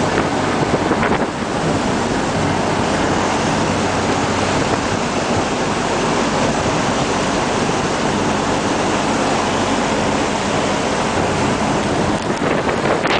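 Steady rush of churning wake water and wind buffeting the microphone aboard a CityCat catamaran ferry under way, with a low, even engine hum beneath.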